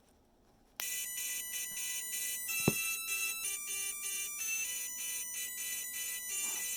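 FPV quadcopter's brushless motors playing the ESC startup tune as the battery is plugged in: a quick melody of electronic beeps changing in pitch, with one sharp click about a third of the way through. The tune is the sign that the freshly resoldered ESC has powered up.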